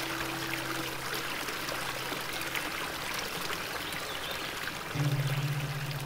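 Small stream running and splashing over rocks in a little cascade, a steady rush of water. Soft background music lies under it, with a low sustained note coming in about five seconds in.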